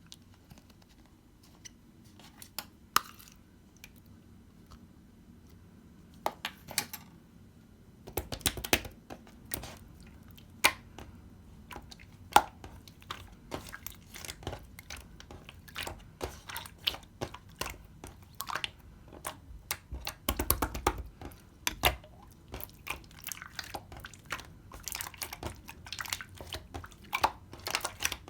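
Hands squishing and pressing clear slime, making sticky clicks and pops: only a few at first, then from about eight seconds in a dense, steady run of pops and crackles.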